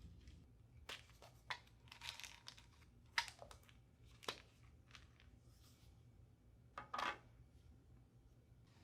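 Irregular crinkling and rustling handling noises with a few sharp clicks, scattered over several seconds; the sharpest click comes a little past three seconds in and a louder double rustle near the end.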